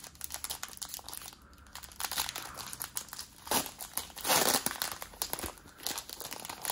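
Foil wrapper of a Pokémon Shining Fates booster pack crinkling and tearing as it is ripped open by hand, with the loudest rip about four seconds in.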